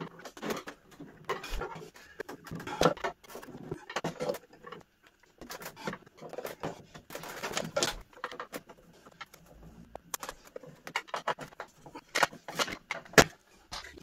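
A screwdriver backing screws out of a plastic LCD TV back cover, with irregular small clicks, knocks and rustles as screws and plastic parts are handled.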